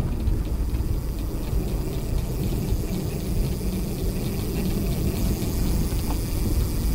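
A recumbent handbike moving fast along the road: steady rushing wind and rumbling tyre noise, with a faint rapid ticking over the top.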